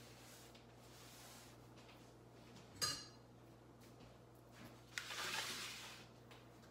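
Quiet kitchen handling sounds over a steady low hum: a single metallic clink about three seconds in, then about a second of scraping as a metal baking tray of cakes on a cooling rack is moved on the wooden counter.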